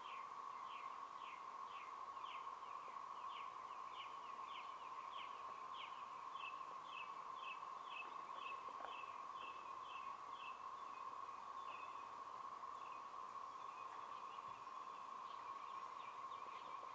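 A steady, hissing drone held around one pitch, a dense insect chorus that sounds like amplified mosquitoes. Over it a bird repeats short calls, about two a second at first, then quicker, fading out after about twelve seconds.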